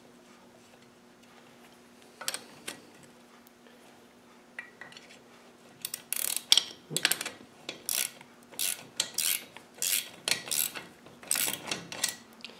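Spanner turning a nut down onto the clutch master cylinder's mounting bolt: a few faint metallic clicks, then from about six seconds in a quick run of clicks and scrapes, about three a second.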